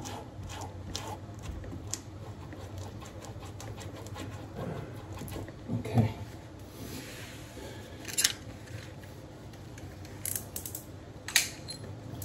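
Scattered small clicks and scrapes of hand work with tools and wallpaper, with a dull thump about six seconds in and sharper snaps near eight and eleven seconds.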